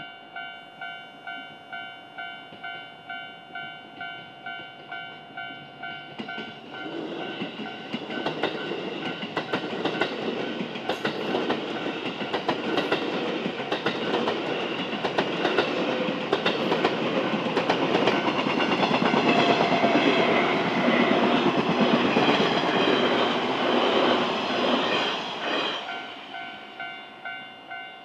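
A JR 183 series electric train approaches and passes, its running noise building to a peak and its wheels clicking over the rail joints. Behind it a level-crossing warning bell rings steadily about twice a second. The bell is heard clearly before the train arrives and again after it goes by.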